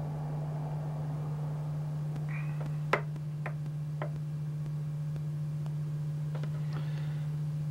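Steady low electrical hum on the recording, with a few light clicks and taps from fly-tying tools being handled at the vise; the sharpest click comes about three seconds in.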